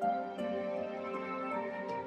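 Soft, slow background music with sustained notes, a new chord coming in at the start and again about half a second in.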